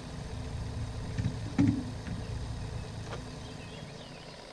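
Low steady rumble with a few knocks and one louder thump about a second and a half in, from handling gear in a small fishing boat.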